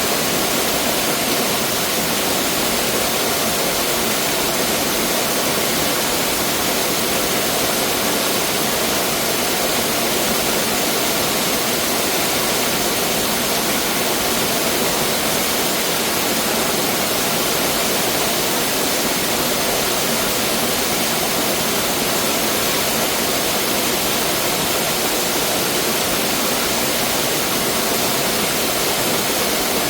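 Mountain valley stream rushing steadily over rocks, an even, unbroken water noise.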